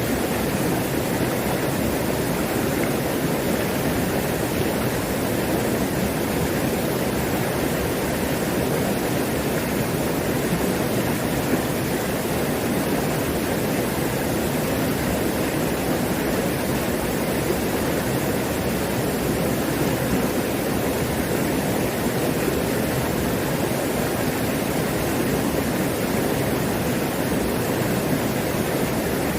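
Mountain stream running full over rocks and small cascades, a steady rush of water.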